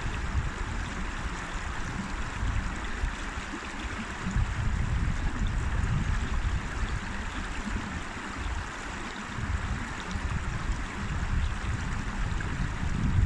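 River water running steadily: an even rushing hiss over an uneven low rumble.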